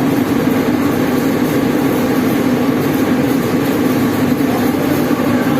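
Steady mechanical drone of workshop machinery, unchanging throughout, with a low hum-like band under a wide noisy hiss.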